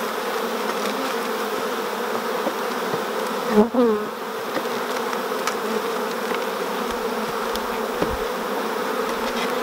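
Honeybees buzzing steadily around an opened nucleus box as its frames are lifted out, a constant hum. About three and a half seconds in, a louder buzz briefly swoops down and back up as a bee passes close.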